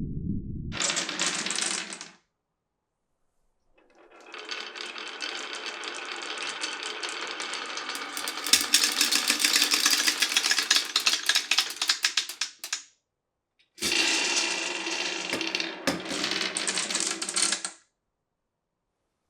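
Glass marbles rolling and clattering along a wooden marble run, heard as three separate stretches that stop suddenly, with a muffled low rumble at the start and a fast run of clicks in the middle stretch.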